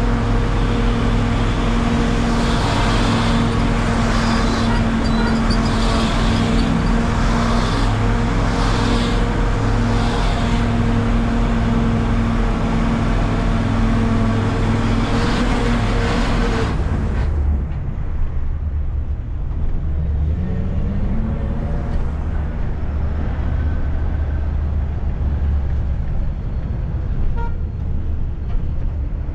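Public-transport minibus (micro) running, with a steady engine drone over road and traffic hiss. About halfway through the hiss drops off suddenly and a low engine rumble remains, with the engine pitch rising briefly soon after.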